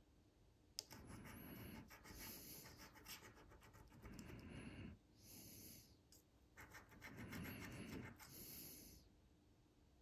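Faint fingernail scratching the coating off a paper scratch-off lottery ticket, in several short spells of rubbing, with a small click about a second in.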